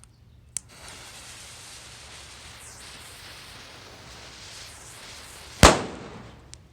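A click, then the fuse of a Sun's Fireworks Black Market Super Loud Cracker hissing steadily for about five seconds. Near the end comes one loud firecracker bang, which fades quickly.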